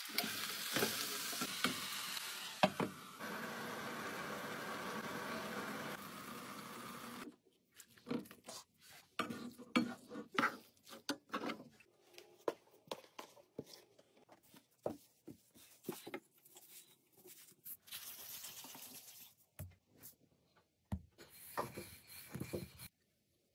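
Minced meat and onion sizzling as they fry in a pan, with clicks of a utensil stirring; the sizzle stops abruptly after about seven seconds. Scattered soft taps and knocks follow as dough is worked on a floured table and rolled out with a rolling pin.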